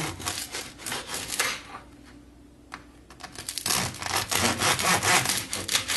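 Serrated bread knife sawing through the crunchy crust of a freshly baked baguette, a crackly rasp of quick back-and-forth strokes. It comes in two runs, with a short lull in the middle as the blade moves through the soft inside.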